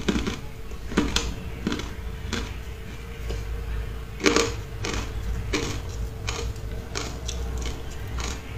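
Close-miked crunching of frozen matcha-powdered ice being bitten and chewed: a string of irregular crisp crunches, the loudest about four seconds in.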